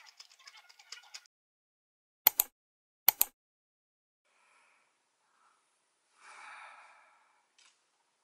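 Crunchy chewing close to the microphone for about a second, then two sharp knocks less than a second apart, the loudest sounds here. Near the end a soft breathy exhale like a sigh.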